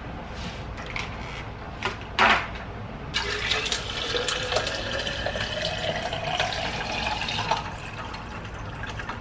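Water pouring into an insulated tumbler, its pitch rising steadily as the tumbler fills, then going on more quietly. A sharp knock comes about two seconds in, before the pouring starts.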